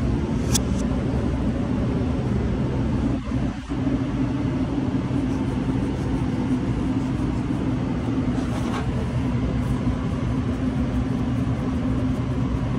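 Steady low mechanical hum and rumble of commercial kitchen equipment, dipping briefly about three seconds in, with a couple of faint clicks.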